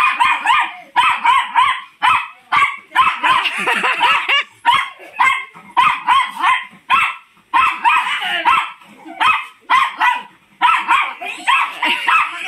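Small fluffy pet dog barking in rapid runs of high-pitched yaps, with short pauses between the runs.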